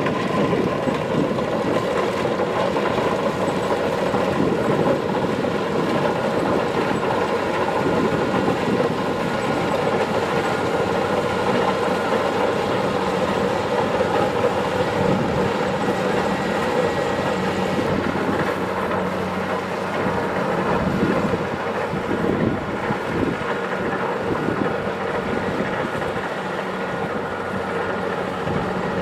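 Kubota DC-70 Plus rice combine harvester running steadily, its diesel engine and harvesting machinery giving a continuous mechanical din with a steady hum under it.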